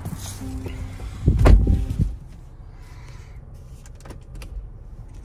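The Land Rover Defender's chime sounds once, then the driver's door is pulled shut with a heavy thump about a second and a half in. A few light clicks follow.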